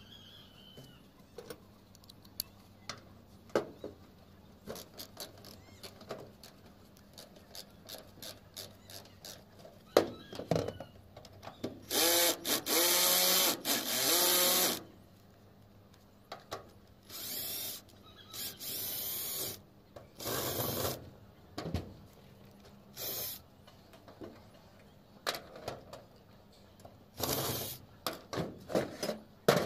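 Cordless drill boring into a corrugated metal roof sheet at a flat-bar joint, in several bursts. The longest burst comes a little before halfway and lasts about three seconds, its pitch dipping and rising; shorter bursts follow. Before it come light clicks and scrapes of hand work on the metal.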